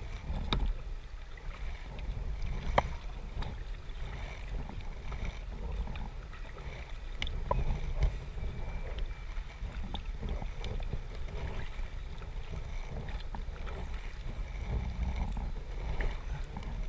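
Kayak moving on a river: water splashing and running past the boat over a low rumble, with irregular knocks and splashes scattered through.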